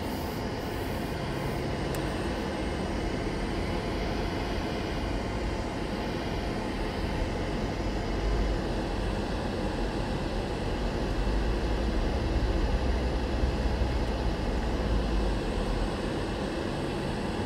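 Car driving slowly, heard from inside the cabin: a steady low rumble of engine and tyres that grows louder for a while in the middle.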